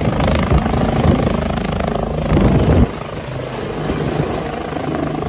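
Helicopter sound: rotor blades chopping over the running engine, with a rapid beating that eases about three seconds in to a slightly quieter, steadier run.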